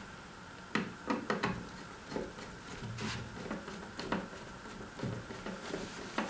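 Hand screwdriver driving a wood screw into a pre-drilled hole in a wooden nesting box: a scattering of small irregular clicks and knocks of the screw, screwdriver and hands against the wood, a quick cluster of them about a second in.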